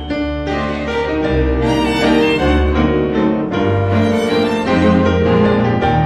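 Instrumental background music with long held notes over a deep bass line that changes note about once a second.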